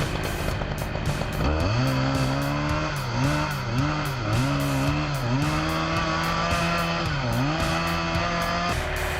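Two-stroke chainsaw revved up to full speed, its pitch dipping briefly again and again as it bogs in the cut, then stopping shortly before the end. Background music plays underneath.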